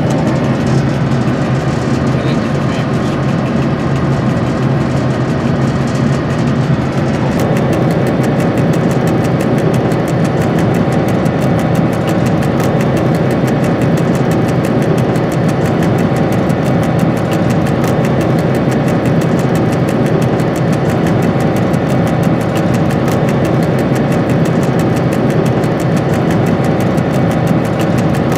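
Diesel engine of a Dr12 locomotive running steadily, heard from inside the cab while the train moves slowly. About seven seconds in the sound brightens and a steady humming note joins.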